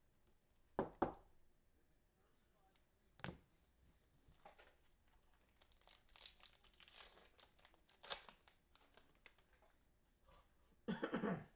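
Plastic cellophane wrapper of a trading-card cello pack crinkling and tearing as it is opened by hand, with a couple of sharp clicks early and a louder burst of handling near the end.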